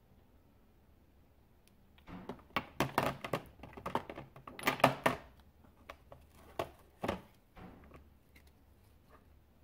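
Ink dropper bottles clicking and knocking against each other and the clear plastic storage case as one is set back among them, a quick irregular run of small hard taps that is busiest around the middle and thins out toward the end.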